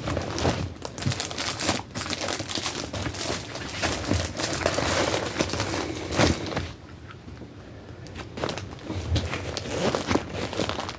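Rustling and crinkling as gear is handled and packed into a day pack, with one sharp crunch about six seconds in and a quieter stretch just after it.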